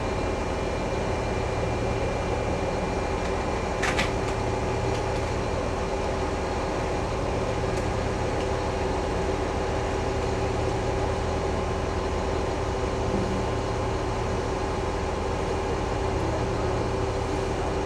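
Crane engine and hydraulics running steadily under load while lifting, a constant hum with a thin steady whine. There is a brief click about four seconds in.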